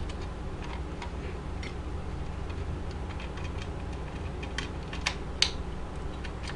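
Scattered small clicks and ticks of hands and a screwdriver working on the metal lamp housing of a Super 8 film projector, loosening it, with two sharper clicks about five seconds in, over a low steady hum.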